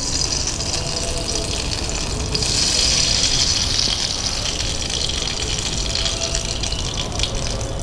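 Hot refined vegetable oil sizzling in a non-stick kadai with a pinch of salt just sprinkled in: a steady crackling hiss that swells about two seconds in and then eases a little. The salt goes in to keep the oil from spattering.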